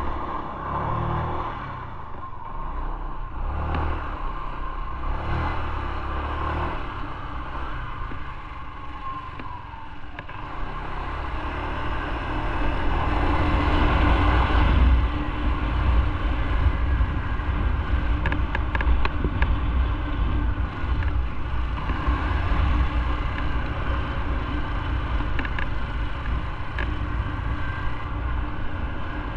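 Motorcycle engine running under way, rising and falling with the throttle and at its loudest about halfway through, over road and wind noise. A few faint ticks and rattles come in the second half.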